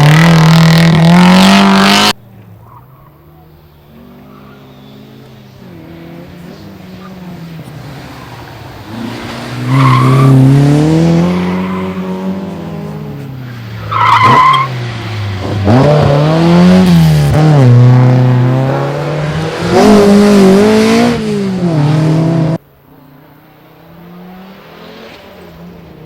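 Rally car engines passing at race pace, the revs rising and dropping in pitch, with tyre squeal. The sound cuts off abruptly about two seconds in and again near the end, between one pass and the next.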